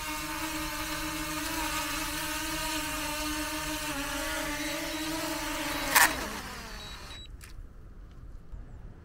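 Small quadcopter drone hovering close by with a steady high propeller whine. About six seconds in comes one sharp knock, then the whine slides down in pitch and dies away within a second.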